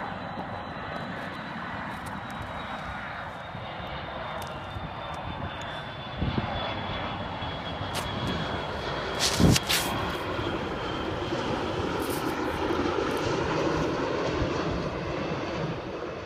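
McDonnell Douglas MD-80 ('Mad Dog') jet airliner on approach to land, its engine noise growing louder with a high whine that slowly falls in pitch. Two knocks cut through, about six seconds in and just after nine seconds; the second is the loudest moment.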